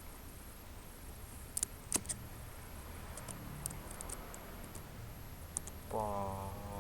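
Computer keyboard keys being typed, sparse irregular clicks. Near the end a short hum of a man's voice.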